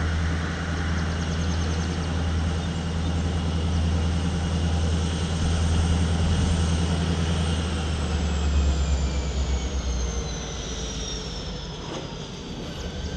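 Freight train passing at speed: a steady low rumble, with a high whine that slides down in pitch from about eight seconds in.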